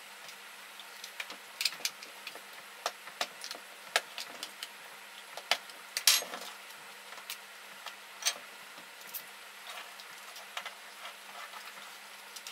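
Irregular sharp plastic clicks and knocks from the housing of a COM2003 steering column switch module as it is handled and taken apart by hand, with a louder snap about six seconds in.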